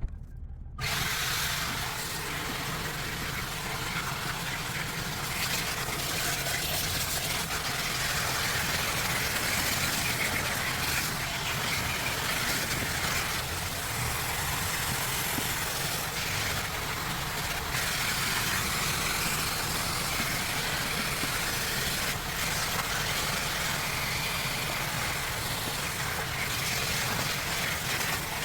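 Vacuum cleaner switched on about a second in and then running steadily: a loud hiss of rushing air over a low motor hum, the hiss shifting a little now and then.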